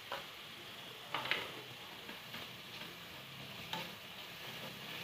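Onion, garlic and chicken sizzling in hot oil in a non-stick kadai, with a slotted spatula scraping through the food against the pan a few times: right at the start, about a second in, and again near the end.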